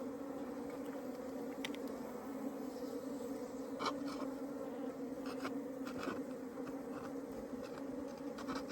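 Swarm of honeybees buzzing in a steady, continuous drone, with a few short clicks heard over it.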